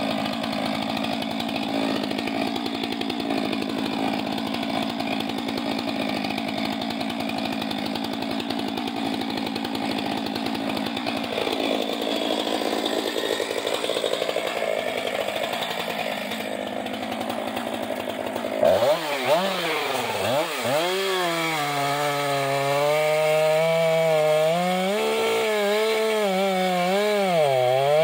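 Stihl MS 462 two-stroke chainsaw running at idle. About two-thirds of the way in it is revved in repeated rising and falling throttle blips, held briefly at a steady high speed, then blipped again.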